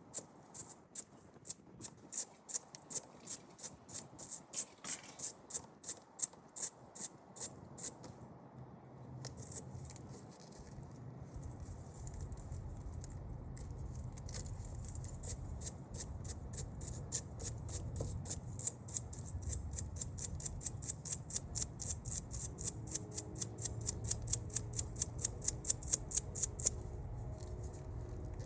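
Round wire brush scrubbed back and forth by hand over a corroded battery cable end: rhythmic scratching strokes, about three a second at first, a brief pause around a third of the way in, then quicker strokes, about four a second. A low hum runs underneath for most of the second part.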